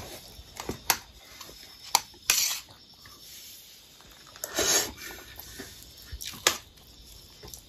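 Steel spoon clinking and scraping against a stainless steel plate of rice while eating: a few sharp clicks and two longer scrapes, one about two and a half seconds in and one near the middle.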